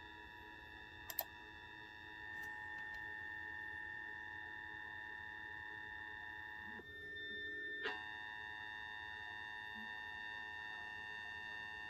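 Emergency Alert System two-tone attention signal: a steady pair of tones held without a break, sounding like an alarm. Most of the tone cuts out for about a second near the middle, then comes back.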